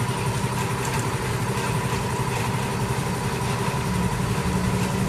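A machine running with a steady hum that does not change.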